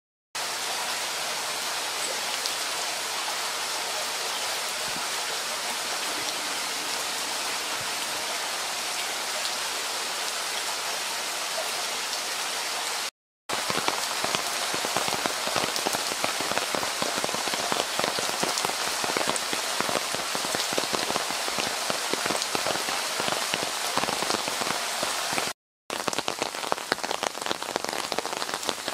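Steady rain falling, a continuous hiss with many individual drops pattering. It breaks off in two brief gaps, about 13 and 26 seconds in, and the separate drop ticks are more distinct in the later part.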